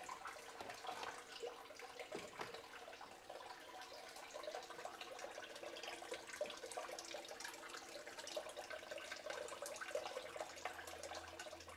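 Quiet trickling and splashing of water circulating through a Blue Bowl gold concentrator, fed by a small submersible pump, with a leaking hose connection dripping and a faint steady hum underneath.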